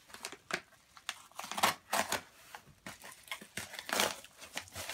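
Paper mailer envelope being slit and torn open with a small knife: a run of irregular scratchy rips and paper crinkles, the loudest about a second and a half in and again near four seconds.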